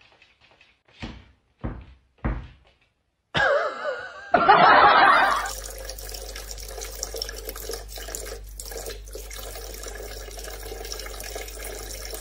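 Kitchen tap running a thin stream of water into a sink, a steady splashing hiss that sets in about five seconds in. Before it come a few short soft knocks and, just before the water, a loud wavering sound.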